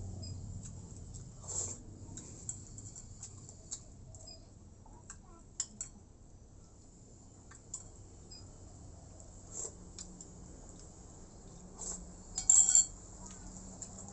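Close-up eating sounds: scattered small clicks of chewing and of tableware, with a sharp ringing clink of dishware about twelve and a half seconds in, the loudest sound.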